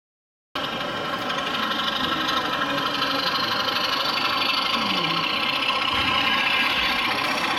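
OO gauge model diesel locomotive running along the layout: a steady, engine-like mechanical running sound that cuts in about half a second in.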